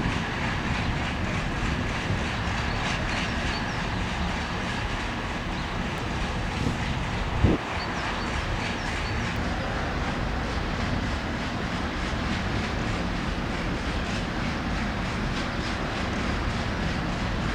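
Freight train rolling past on jointed track, wheels clacking over the rail joints in a steady run of noise, with one sharp louder bang about seven and a half seconds in.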